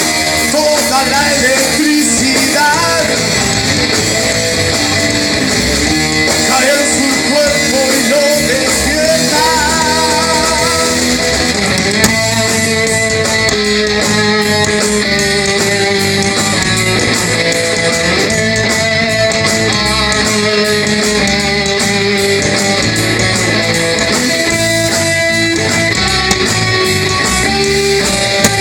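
Rock band playing live, with a lead guitar over bass guitar and drums in a passage without lyrics. The guitar bends and wavers its notes in the first few seconds, then settles into steadier held notes.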